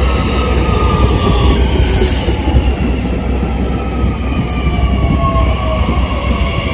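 An electric commuter train (multiple unit) runs slowly past close by: steady rumble of wheels on rails with a low hum, and whining tones that slowly fall in pitch. A brief high hiss comes about two seconds in.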